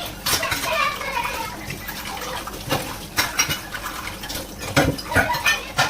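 Tea utensils being washed by hand: cups and pots clinking and knocking together with water running, the sharpest knocks near the end.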